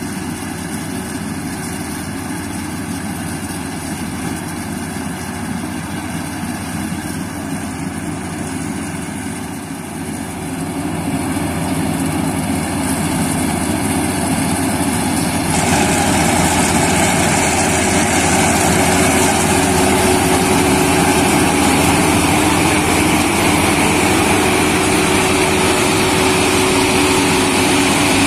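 Fieldking rice combine harvester's engine and cutting header running steadily as it works through standing paddy, getting louder as it comes nearer. About halfway through the sound jumps up suddenly and turns harsher and noisier, close to the machine.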